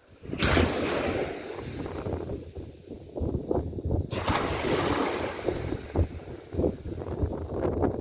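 Sea waves washing in, with two surges of surf about half a second and four seconds in, each fading away slowly. Wind buffets the microphone underneath.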